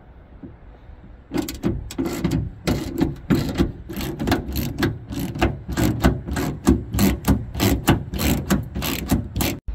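Ratchet wrench with a 10 mm socket clicking as it backs out the screws that hold a rear wiper motor. A run of quick clicks, several a second, starts about a second in.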